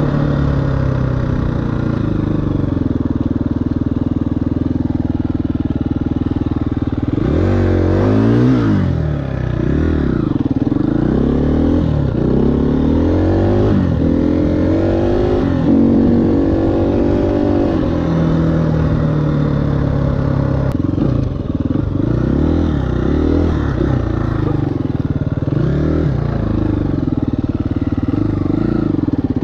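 2018 KTM 350 EXC-F's single-cylinder four-stroke engine running at a steady pitch, then from about seven seconds in revving up and falling back again and again as the bike is ridden through its gears.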